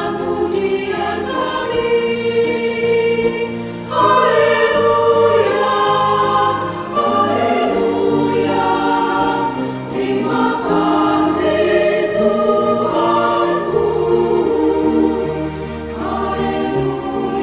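Mixed church choir singing an anthem in harmony, with accompaniment; the sound swells louder about four seconds in.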